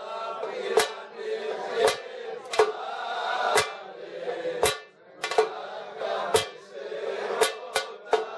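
Daouli (Greek double-headed bass drum) struck with a wooden stick in an uneven dance beat, heavy strokes about once a second with a quick run of strokes near the end, under men's voices singing.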